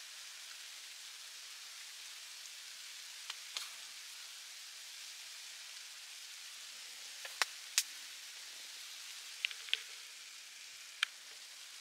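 Mochi sizzling in a hot steel dish on a stove: a steady hiss with a handful of sharp pops and crackles, scattered irregularly.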